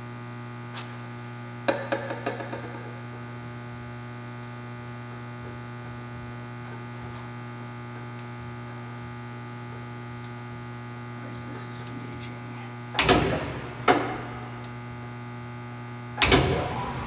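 Steady electrical hum from the powered-up Hardinge HLV-H lathe, with a short run of clicks about two seconds in as its feed controls are shifted. Two loud knocks come near the end, followed by a louder clatter just before the end.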